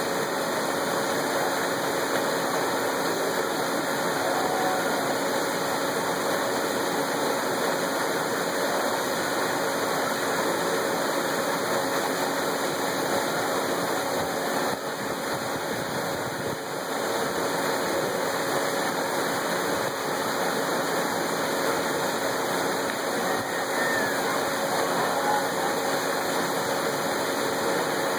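Steady rush of water pouring from a grist mill's flume and splashing into the pool below beside its wooden water wheel.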